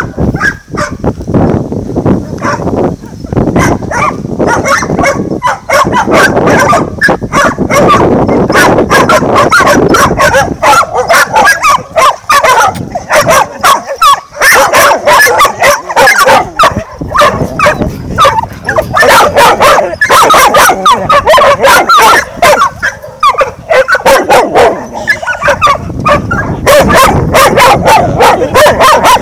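Several small dogs barking loudly, one bark hard on the next, almost without a break.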